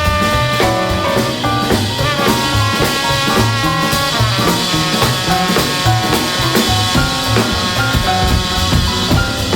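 Background music: an upbeat jazz or swing instrumental with brass and saxophone over a drum kit.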